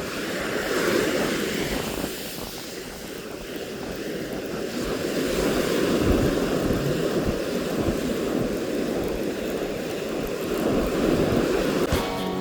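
Surf breaking on a sandy beach, the wash swelling and easing in slow surges every few seconds, with wind buffeting the microphone.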